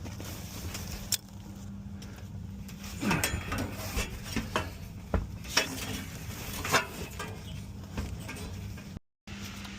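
Scattered, irregular light metallic clicks and clinks of handled hardware or tools over a low steady hum. The sound cuts out briefly near the end.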